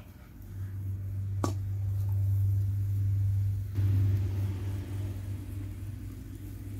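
A low steady rumble that swells over the first couple of seconds and eases off toward the end, with a single sharp click about a second and a half in.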